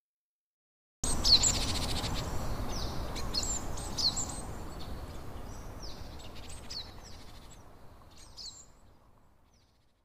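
Birds chirping in short, high, downward-sweeping calls over a steady outdoor rumble. It starts abruptly about a second in, then fades out gradually.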